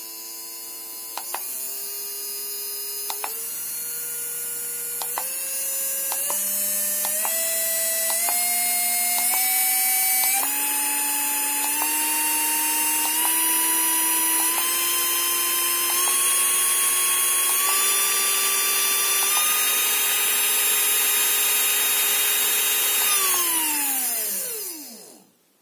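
Small brushed DC motor driven by a PWM speed controller whines, stepping up in pitch about once a second as its speed is raised a step at a time, and gets louder. Near the end it is switched off and winds down with a falling whine over about two seconds under the controller's soft stop, then goes silent.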